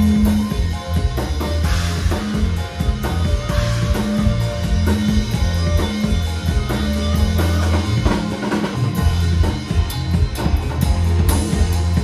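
Live instrumental dangdut band music: a drum kit and kendang hand drums play a busy, steady beat over a low bass line, through a large stage sound system.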